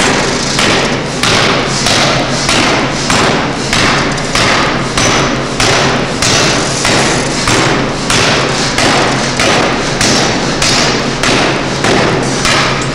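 Pneumatic forging hammer striking a workpiece in a steady rhythm, a little under two blows a second, over a steady low hum.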